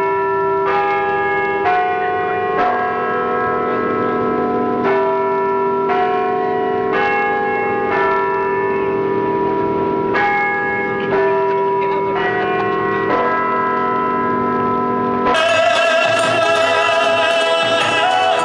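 A slow tune of struck bell-like notes, about one a second, each ringing on as the next one sounds. About fifteen seconds in it cuts to live garba music with singing from the hall.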